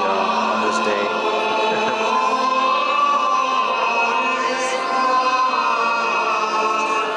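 Liturgical choir singing a sacred chant in long held notes.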